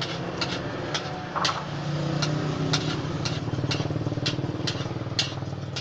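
Metal cooking utensil clicking against a wok about twice a second, over a low, steady motor hum.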